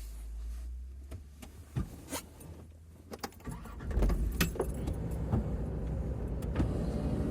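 Land Rover Discovery 2 on the move: a series of clicks, knocks and jangling rattles, then the low running noise of the vehicle grows louder about four seconds in, with knocks continuing over it.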